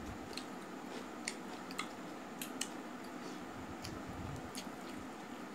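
A person eating by hand: chewing with scattered sharp, wet clicks, while fingers mix curry into rice on a steel plate.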